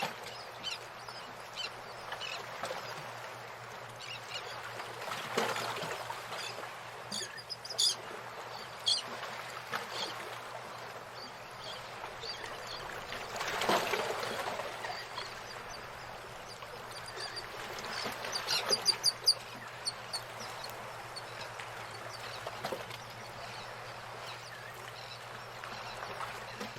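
Outdoor nature ambience: birds calling in short series of high chirps, busiest twice, with a few louder broader calls standing out over a steady rushing background.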